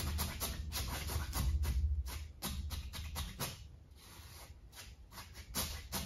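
Paintbrush rubbing over stretched canvas in short, quick scratchy strokes, several a second, easing off for a moment past the middle.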